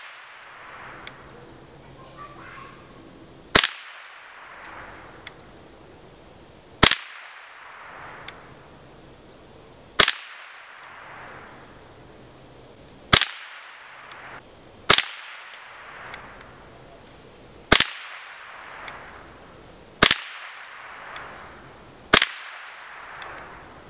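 Savage Model 64F semi-automatic .22 LR rifle firing CCI Mini Mag rounds: eight single shots spaced two to three seconds apart, each followed by a short echo.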